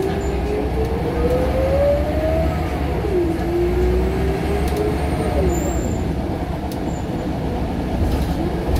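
Scania L94UB bus with a nine-litre five-cylinder diesel, heard from inside the saloon while under way. A steady low engine rumble runs under a drivetrain whine that rises in pitch as it accelerates. The whine drops suddenly about three seconds in as it changes gear, then climbs again.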